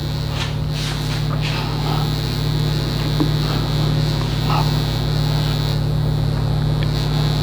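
Steady electrical mains hum, with faint soft rubbing strokes of a cloth wiping marker off a whiteboard.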